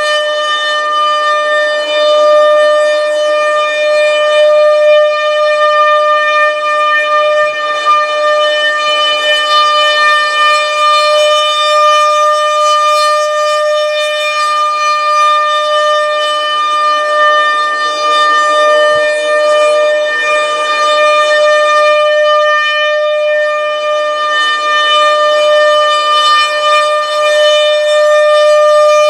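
American Signal Corporation RM-130 rotating outdoor warning siren sounding its steady alert tone at about 600 Hz, rising and falling gently in loudness as the rotating horn sweeps around.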